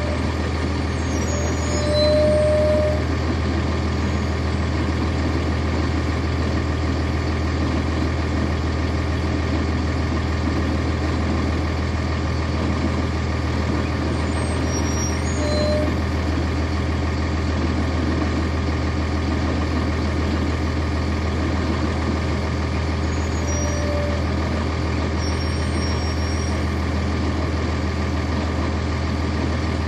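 The Cummins ISC six-cylinder diesel engine of a 1999 NovaBus RTS transit bus, heard from inside the bus, running with a steady, even drone. A brief squeak sounds about two seconds in, and fainter ones come later.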